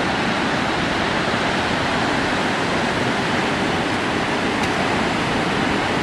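Large river waterfall and the white-water rapids below it: a loud, steady rush of falling and churning water.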